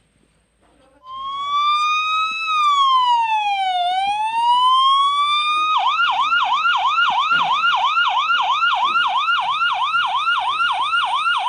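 Emergency-vehicle siren. It starts about a second in with a slow wail that rises, falls and rises again, then switches to a fast yelp of about four sweeps a second that keeps going.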